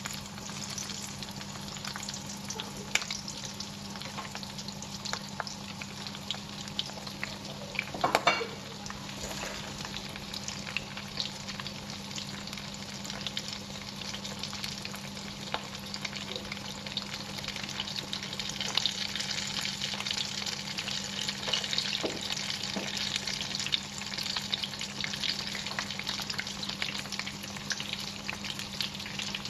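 Prawn toasts deep-frying in hot vegetable oil in a wok: a steady sizzle with constant small crackles, swelling louder in the second half. A brief louder clatter about eight seconds in, over a low steady hum.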